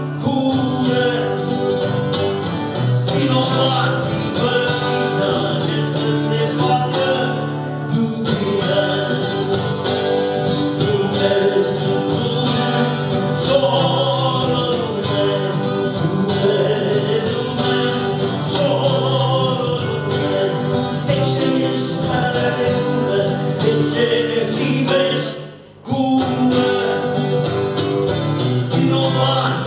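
A man singing a song in Romanian, accompanied by a strummed acoustic guitar. The music drops out briefly about 26 seconds in, then carries on.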